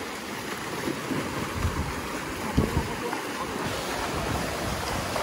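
Shallow surf washing in and water splashing around wading legs, with wind noise on the microphone.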